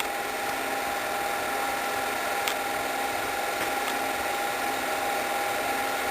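8mm film projector chugging away: a steady mechanical whir with a constant hum, and one faint click about two and a half seconds in.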